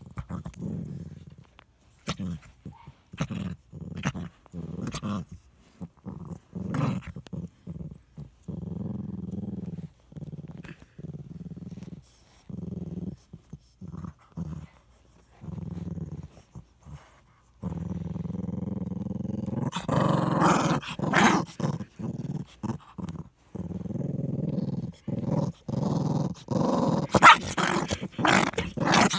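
Small dog growling in repeated low, rumbling bursts while it guards a sock held in its mouth. About two-thirds of the way in, the growling becomes nearly continuous, with louder, harsher outbursts twice near the end.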